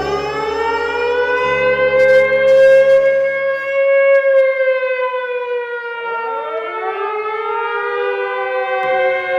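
Air-raid siren wailing: its pitch rises over the first few seconds and then slowly falls, and a second wail rises about six seconds in. A low steady drone under it stops about four seconds in.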